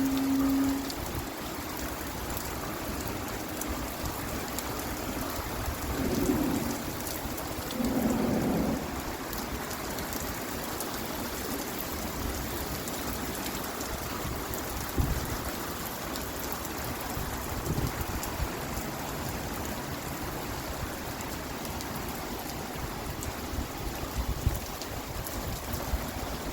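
Heavy rain falling steadily, an even hiss of rain throughout. A short low hum right at the start and two brief louder low swells about six and eight seconds in rise above it.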